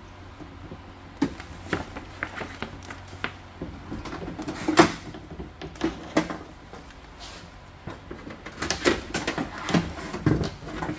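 Clear plastic vapor barrier sheet from a truck door crinkling and crackling as it is pulled and handled, with scattered sharp clicks and knocks; the loudest comes about five seconds in, and a cluster follows near the end.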